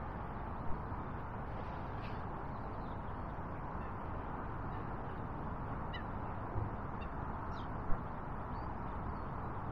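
Steady outdoor riverbank background noise with a few faint, brief bird calls scattered through it, and a soft knock near the end.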